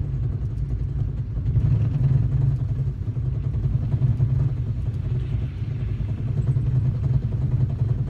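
Pickup truck's drivetrain heard from inside the cab while driving on a snowy road in four-wheel drive, making a drum-like beat over the steady low rumble of engine and tyres. The driver puts it down to the four-wheel drive not working properly.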